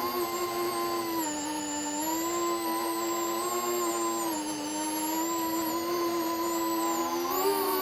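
FPV quadcopter's brushless motors and propellers whining steadily through the onboard mic, the pitch drifting with throttle and rising briefly near the end.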